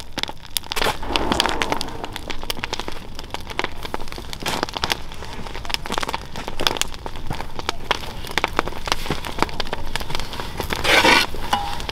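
Large wood fire crackling and popping steadily as it burns down for charcoal. A few louder scraping, rustling sounds come from a shovel working coals in a steel barrel, the loudest near the end.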